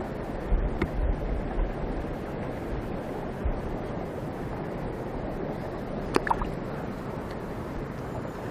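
Steady rush of stream water around the legs of a wading angler, with a few low thumps of wind on the microphone in the first two seconds. A short squeak comes about six seconds in.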